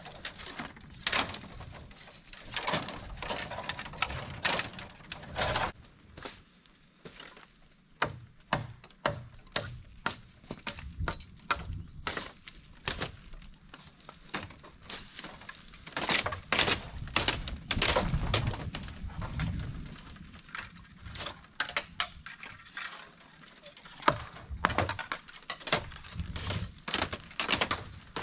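Dry bamboo branches and leaves being broken and cleared away: irregular cracking, snapping and rustling, at times several sharp cracks a second.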